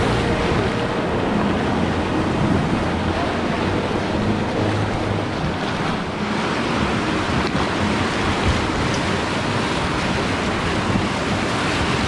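Whitewater rapids rushing and splashing around a raft, a steady roar of churning water close to the microphone.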